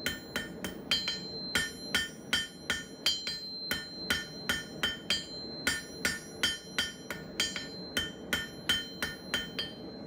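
Blacksmith's hammer striking hot 3/8-inch square steel stock on an anvil in a steady rhythm of about three blows a second, drawing out a one-sided taper. Each blow rings with a bright metallic ring, over a steady low rushing noise.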